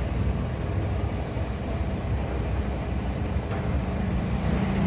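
Steady low rumble of background traffic.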